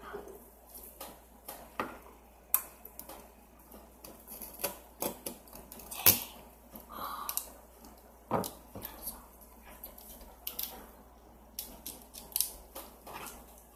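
Irregular sharp clicks and crunches of ice being eaten from a green plastic spoon, with the spoon tapping and scraping on a white container; the loudest crack comes about six seconds in.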